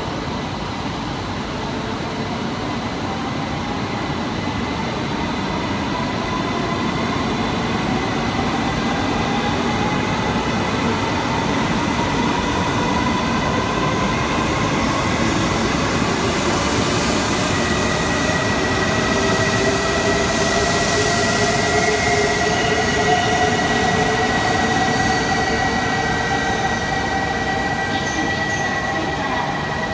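E2 series Shinkansen pulling away from an underground platform and accelerating, its traction motors whining in several rising pitch glides over a steady rumble that grows louder. A steady high tone comes in about halfway through.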